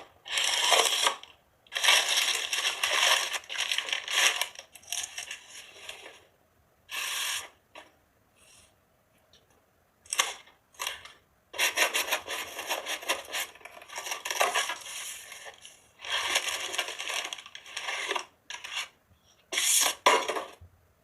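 Handling noise: repeated bursts of scraping and rubbing on a hard surface, a second or two each, with short pauses between.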